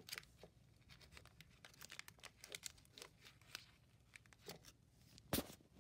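Plastic wrapper of a Nature Valley peanut butter snack bar being torn open and crinkled, heard as faint scattered crackles, with one louder sharp snap near the end.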